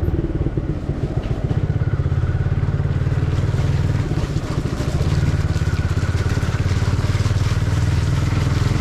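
Motorcycle engine running steadily while riding, a fast low throb with wind noise over it.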